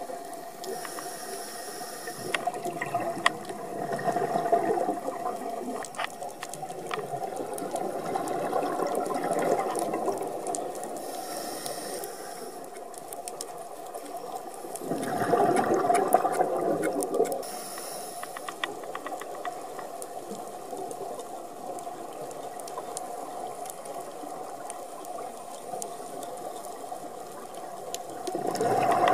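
A scuba diver breathing through a regulator underwater: a hiss on each inhale and a rush of exhaled bubbles, recurring about every six to seven seconds, over a steady hum and scattered clicks.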